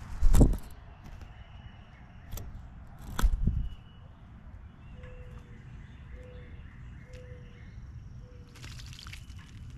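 Eastern bluebird splashing in a bird bath near the end, a short burst of water spray. Earlier, two loud thumps about three seconds apart, then a bird repeating a short low note four times, about one a second.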